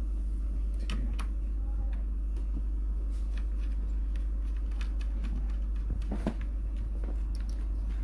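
Scattered light clicks and taps of hands working on an opened laptop's plastic chassis and small parts, over a steady low hum.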